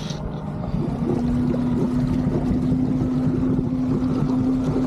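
Motorboat engine running steadily under way, a constant low hum over rushing low rumble.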